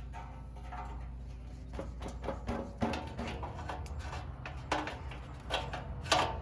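Intermittent clicks, scrapes and a few sharper knocks of hand tools on metal as an old tag and a hood hinge bracket are worked off a car's steel firewall, over a low steady hum.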